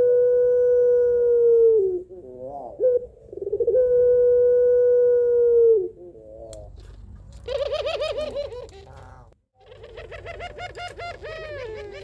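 A female ringneck dove (puter) calling for a male. She gives two long, steady coos of about two seconds each, each sliding down in pitch at the end. Then comes a higher, quavering, trembling call, broken once by a brief gap.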